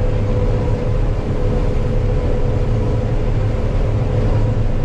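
Combine harvester running steadily while cutting soybeans: a constant low drone with a thin steady whine over it.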